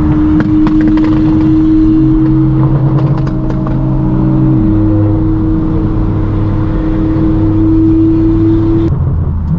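Straight-piped BMW M4 F82 (AWE Track non-resonated exhaust) with its twin-turbo inline-six droning loudly at a steady engine speed while cruising. Its deeper notes drop twice, and there are a few short pops in the first half. The drone cuts off suddenly near the end.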